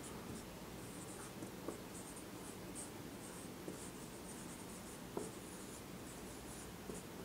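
Marker pen writing on a whiteboard: faint, short, high-pitched strokes of the tip on the board, one after another, with a few light ticks.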